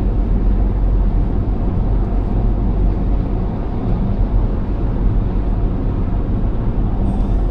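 Steady road noise inside a car cruising on the freeway at about 70 mph: an even low rumble of tyres and engine.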